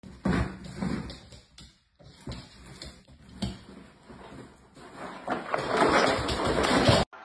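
Cardboard box bumping and scraping on a wooden floor as a large dog roots in it, with irregular knocks. A louder stretch of rough scraping and rustling near the end as the box is lifted and swung about at the dog's head.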